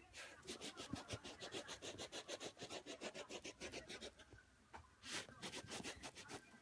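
Miniature dachshund puppy digging at the floor with its front paws: fast, even scratching strokes, about six a second, a short pause, then another burst of scratching.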